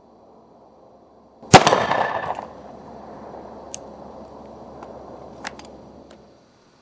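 Ruger SR-1911 Commander .45 ACP pistol firing a single shot about a second and a half in, followed by a few faint clicks.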